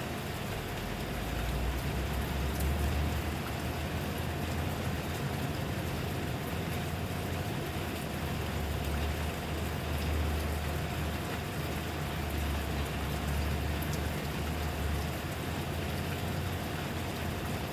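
Steady rain falling, with scattered drop ticks over an even hiss. A low rumble swells and fades underneath, and a faint steady hum runs through it.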